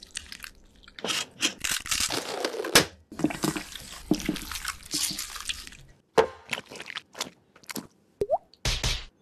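Gloved hands mashing peeled boiled eggs with mayonnaise in a stainless steel bowl, making a run of wet, squishy mashing noises. Near the end come several short separate soft knocks as egg is set on bread.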